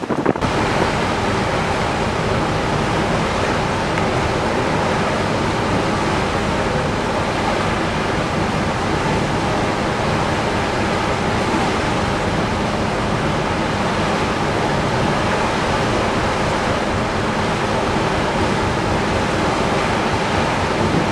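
Steady rushing of wind and water heard from the deck of a moving ship, an even hiss with no breaks.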